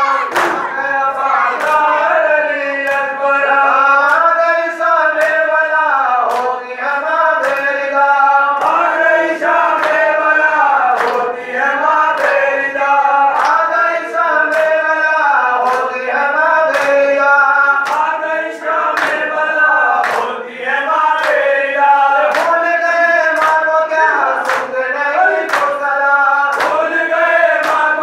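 A group of men chanting a mourning lament (noha) in unison during matam, with the sharp slaps of open hands striking bare chests keeping a steady beat, a little under two slaps a second.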